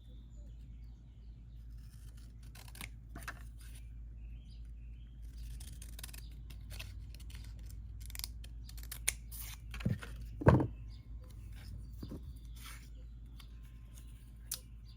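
Scissors snipping, trimming off the excess of a freshly glued paper border strip as a series of scattered short snips and clicks. There is one louder knock about ten and a half seconds in.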